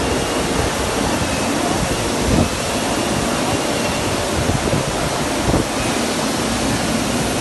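Steady, loud rushing noise of a factory floor, with machinery and ventilation running, and a couple of brief bumps along the way.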